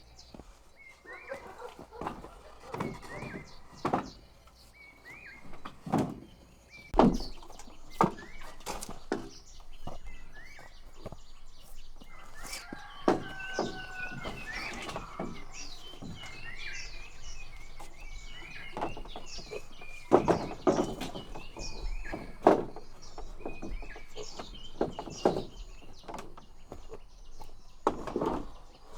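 Small birds chirping over and over in short, rising chirps, with scattered sharp knocks and taps throughout.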